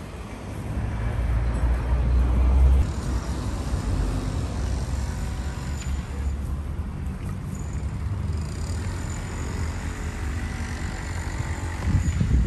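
Outdoor city ambience: road traffic running as a steady low rumble, which drops abruptly about three seconds in, with a brief louder rumble near the end.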